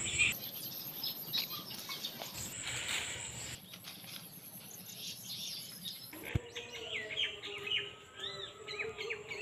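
Leaves and vines rustling as ridge gourds are pulled and snapped off by hand. After about six seconds, birds chirp in short calls.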